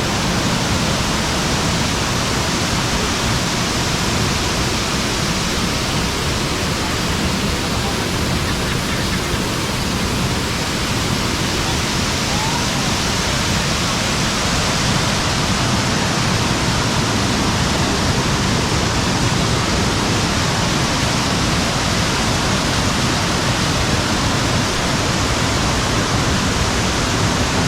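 Waterfall: a steady, unbroken rush of water pouring over rocks.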